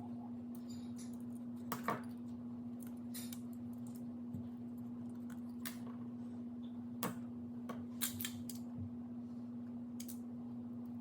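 Scattered small plastic clicks and taps from buttons and parts of an HVAC button panel being handled and fitted, over a steady low hum.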